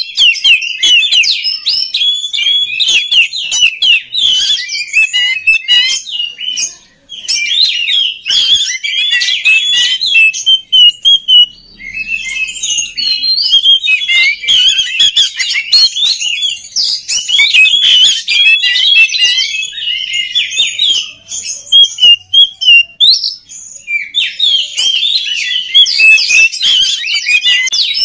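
An Oriental magpie-robin (kacer) sings loudly in a fast, varied, near-continuous stream of whistles, chirps and chattering phrases, breaking off briefly a few times.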